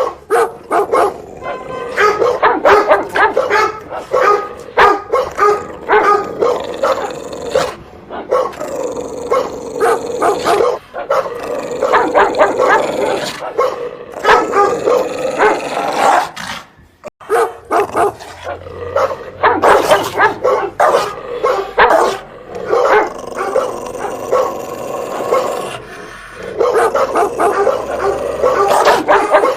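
A dog barking loudly and repeatedly in rapid runs, with a short break about halfway through.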